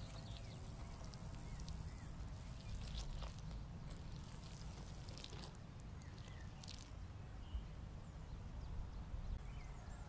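Quiet background: a steady low rumble with a faint high hiss, strongest in the first couple of seconds, and a few soft ticks.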